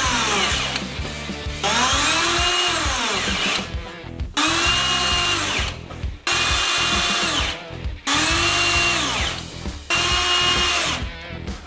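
Cordless drill driver driving screws through a metal hinge into wood, in several separate runs of a second or two each. The motor's whine rises in pitch as it spins up and falls as it slows, with short pauses between screws.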